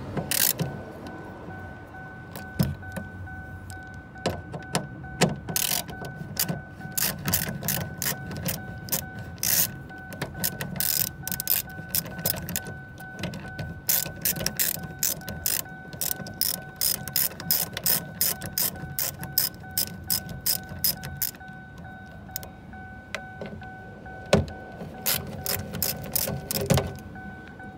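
Ratchet with a 7mm socket clicking in quick runs as the screws holding a car door speaker are backed out, with a couple of short pauses between runs.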